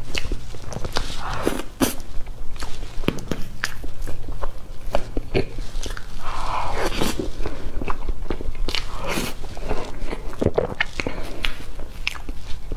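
Close-miked eating of soft cream layer cake: wet chewing and mouth smacks, with many irregular sharp clicks.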